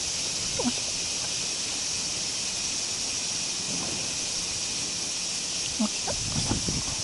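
Steady high-pitched insect drone over the outdoor ambience. Low rumbles of wind on the microphone come in near the end.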